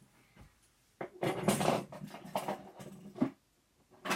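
A fidget spinner being handled and flicked: a rattling clatter for about two seconds that ends in a sharp click, then a shorter rattle near the end.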